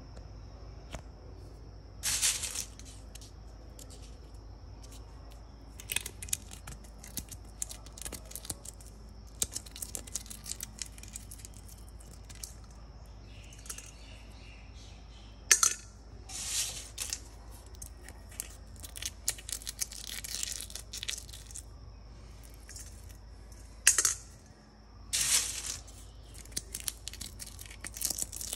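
Dried parchment coffee beans rubbed and squeezed by hand in a stainless steel bowl: bursts of crunching and crackling every few seconds as the hard parchment shells crack and come away, with scattered clicks of beans against the metal in between.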